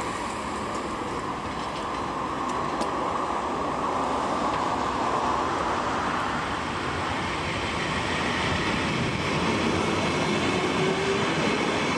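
Saltsjöbanan electric commuter train pulling away from the platform and running past, its rumble and rail noise building steadily. A faint rising whine comes in late on.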